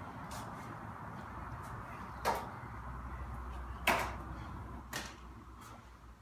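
A few sharp clacks over a steady hiss, the loudest about four seconds in and another just over two seconds in.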